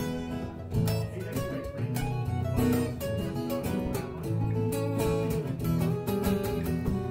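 Acoustic guitar played solo in a blues instrumental break, mixing picked single notes with strummed chords.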